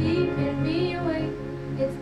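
A teenage girl singing solo into a microphone, her melody gliding between notes, over a steady instrumental accompaniment.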